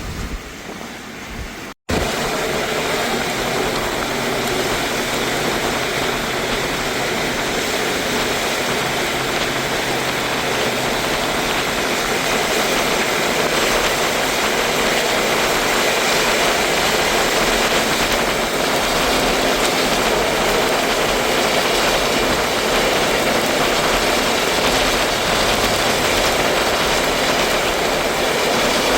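Steady roar of torrential rain and high wind, starting after a brief dropout about two seconds in.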